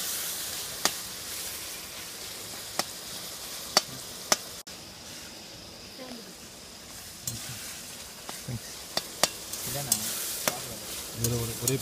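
Chopped tomatoes and onions sizzling in an aluminium kadai, stirred with a metal spatula that clicks sharply against the pan now and then.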